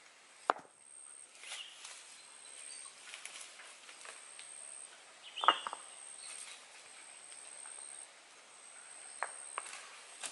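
A few sharp knocks of stones being handled and set down on stony ground, one soon after the start, the loudest about halfway through, and two small ones near the end, over a faint steady high whine.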